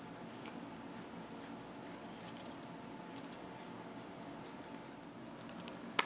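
Kitchen scissors snipping through a vacuum-sealed plastic food package, with the plastic crinkling as it is cut and handled: a run of small irregular snips and crackles, ending in one sharper click.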